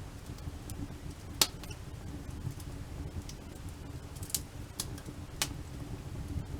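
Campfire crackling: scattered sharp pops of burning wood over a low steady rumble, the loudest pop about a second and a half in and a few more later on.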